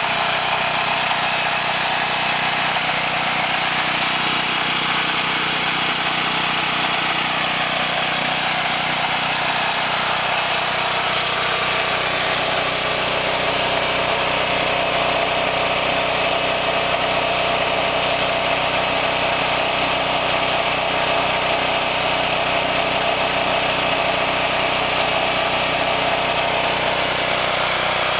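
Generac home standby generator's engine running at a steady, constant speed during a manual test run. It is pretty loud.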